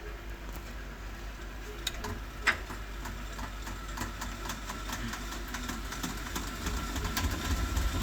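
Beko WMY81283LMB2 washing machine starting its spin cycle in service mode: a steady motor hum with scattered clicks, and a low rumble building near the end as the drum speeds up. The load, a single teddy bear, is unbalanced.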